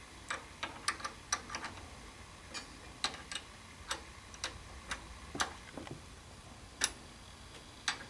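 Faint, irregular metal clicks of an open-end wrench on a rear-axle acorn nut as the nut is tightened in short turns.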